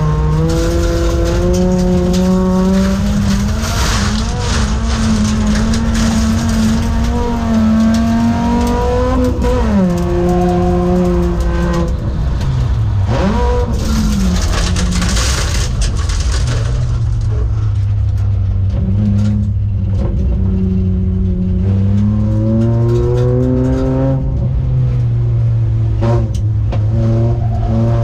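Folk-race Volvo 850's five-cylinder engine at race throttle, its pitch climbing and falling several times as the driver accelerates, lifts and shifts, with a deep drop and pickup about ten seconds in and a steadier, lower drone in the second half. Tyre and gravel noise run underneath.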